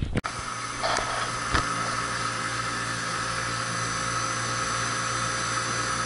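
Trane YCC packaged air conditioner running: the compressor and condenser fan give a steady hum with a higher whine over it, and two light clicks come about a second in. The compressor is running on a makeshift repair of a damaged terminal.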